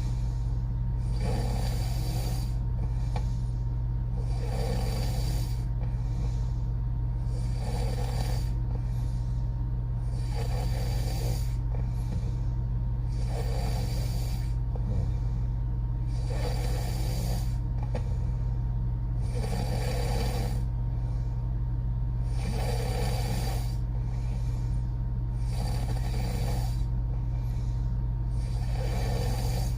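A woman snoring through her open mouth in a slow, regular rhythm, about one breath every three seconds, a rasping snore alternating with a hissing rush of air. A steady low hum runs underneath.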